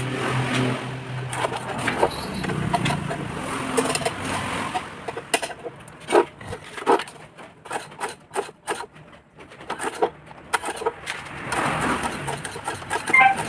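Irregular clicks and knocks of hand work on an electric water pump under repair, with a low hum in the first couple of seconds.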